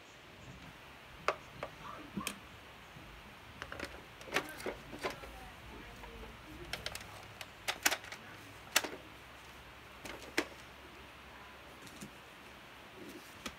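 Scattered plastic clicks and knocks from a toy blaster and its clip-on Picatinny rail being handled, with a low rumble of handling midway.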